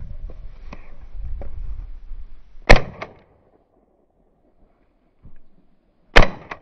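Two shotgun shots, about three and a half seconds apart, each loud and sharp with a short echo. Wind buffets the microphone before the first shot.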